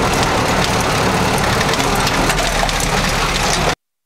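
1953 Willys M-38's four-cylinder flathead engine running at low speed while the jeep rattles and knocks over rough, bumpy ground. The sound cuts out abruptly for a moment near the end.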